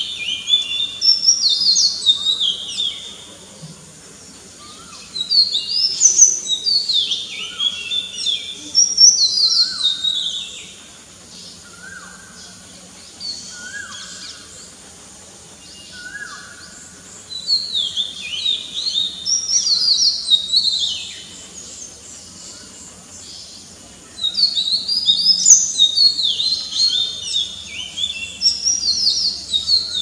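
Oriental magpie-robin singing: bursts of rapid, varied whistled notes that leap up and down in pitch, a few seconds of song at a time with short pauses between. Softer, lower whistles sound in the gaps.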